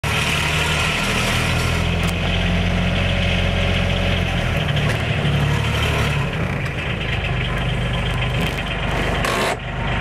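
Polaris Ranger Diesel UTV's diesel engine running as the vehicle drives slowly out and pulls to a stop, its pitch shifting a couple of times along the way.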